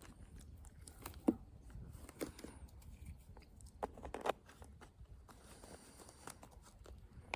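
Quiet outdoor ambience: a low wind rumble on the microphone, with a few faint scattered crunches and clicks, the loudest about a second in and again about four seconds in.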